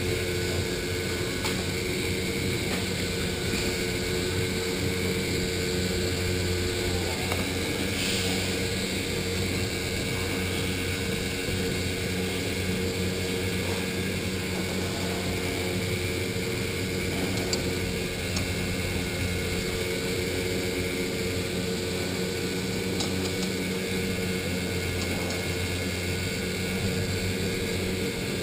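Electric go-kart motor whining steadily while the kart is driven at speed, heard from the driver's seat.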